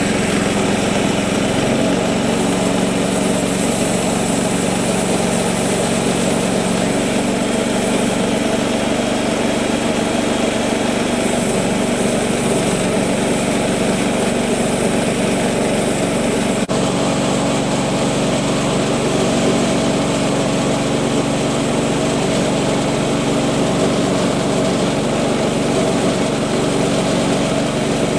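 Woodland Mills HM126 portable bandsaw mill running steadily under load, its engine driving the blade through a black walnut round.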